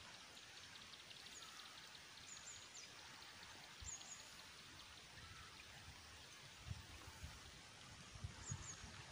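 Faint, steady rush of a muddy river in flood, with a few short high bird chirps and a few low thumps.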